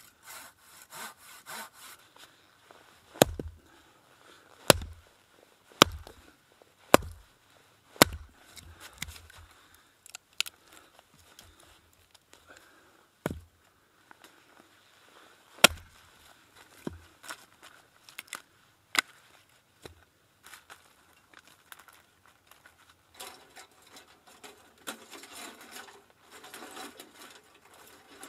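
Firewood being worked by hand: a run of sharp knocks into wood, each with a dull thud, about one a second at first and then more spaced out, with rubbing and scraping between them. A stretch of rasping, sawing-like strokes follows near the end.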